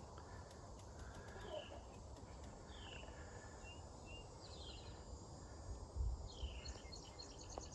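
Faint bird chirps: short, falling calls every second or so, with a quick pulsed trill about six and a half seconds in, over a low background hiss.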